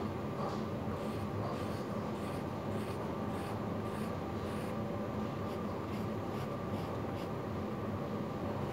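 Fine-tip felt pen scratching across paper in short drawing strokes, about two a second, as parallel hatching lines are put down. A steady low hum runs underneath.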